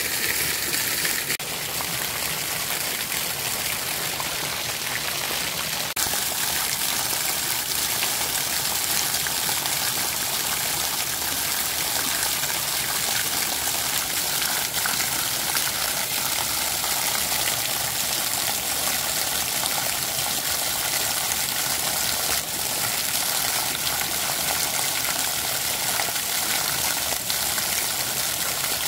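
Water running steadily through a shallow, mossy spring-fed channel, a continuous rushing flow.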